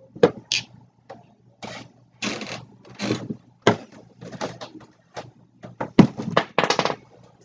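Metal sockets clinking and clattering as they are handled and set onto the wooden dowel pegs of a socket organizer: a quick run of sharp clicks with a few longer rattles.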